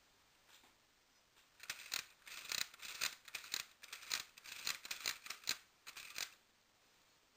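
A run of sharp, irregular plastic clicks and clacks from a Lego-built toy shotgun being handled, starting about a second and a half in and stopping near the end.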